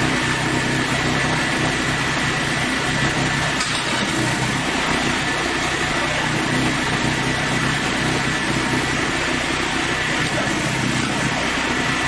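Portable band sawmill running steadily, its engine holding an even speed with a faint high steady tone above it.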